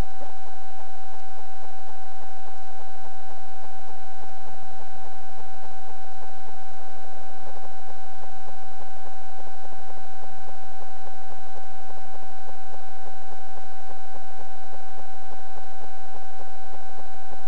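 A loud, steady high-pitched electronic tone, holding one pitch without a break, over a faint fast ticking hiss.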